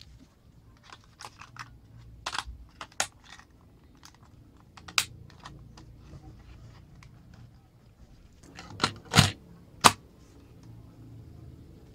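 Scattered plastic clicks and taps as an Aiwa HS-PS100 portable cassette player's casing and battery door are handled. Three louder clicks come in quick succession about nine seconds in.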